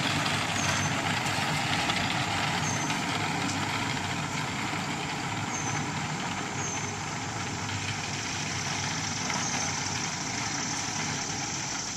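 Steady machine noise running nearby, like an idling engine, easing slightly near the end, with four faint short high chirps in the first seven seconds.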